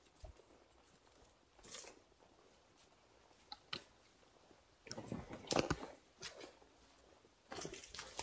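Irregular rustling and crinkling bursts from a heavy rubber protective suit and brushing leaves as the wearer moves, loudest in a cluster a little past the middle.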